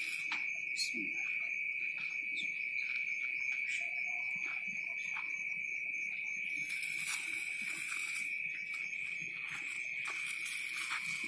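Crickets calling in a steady, unbroken high chorus, with a few faint scuffs and scrapes against it.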